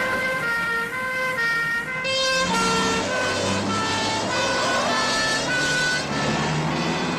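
Police car sirens going in an alternating two-note pattern over the running of vehicle engines. A deeper engine rumble joins about two and a half seconds in, as more police vehicles arrive.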